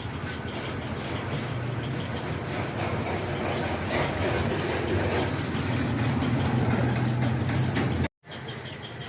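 A train running steadily, heard through a TV's speakers, with a low hum under it. The sound cuts out completely for a moment just after 8 seconds.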